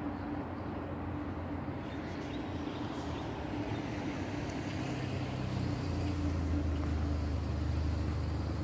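Street traffic, with a car's engine growing louder from about halfway through over a steady low hum.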